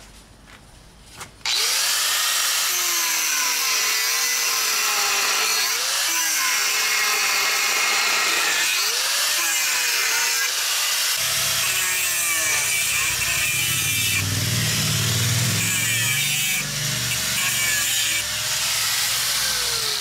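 Angle grinder with a cut-off disc cutting through the welded steel shell seam of an LG reciprocating refrigerator compressor. The harsh grinding starts about a second and a half in, its whine wavering up and down as the disc bites. A deeper rumble joins from about eleven seconds in.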